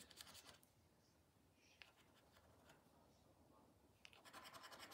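Faint scratching of a coin rubbing the latex coating off a bingo scratch card, briefly at the start and again near the end, with near silence in between.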